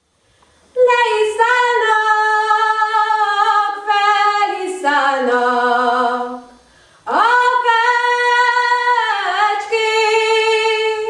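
A young female voice singing a Hungarian folk song unaccompanied, in two long phrases with a short breath between them. The first phrase steps down to a low held note; the second opens with an upward slide into a long held note.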